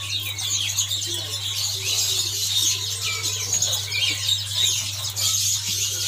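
Many caged songbirds chirping and twittering at once in a dense, overlapping chorus, over a steady low hum.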